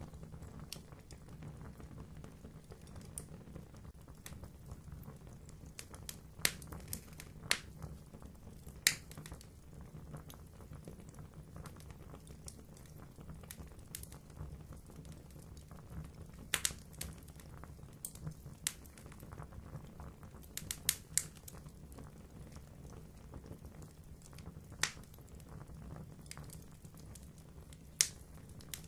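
Fire crackling in a fireplace: sharp pops at irregular intervals, a few much louder than the rest, over a steady low rumble.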